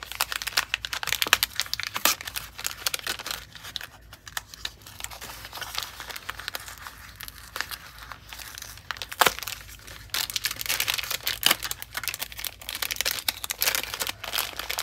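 Plastic and card packaging of a small packet of sewing pins crinkling and crackling as it is handled and opened. The crinkling comes in spells, heaviest in the first few seconds and again near the end, lighter in between.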